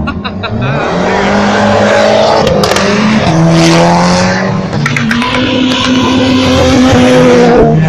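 Cars driving off hard one after another. A Fiat 500 Abarth's engine revs up as it passes, and its pitch drops at a gear change about three seconds in. Then a Ford Sierra's engine comes up loud from about five seconds in.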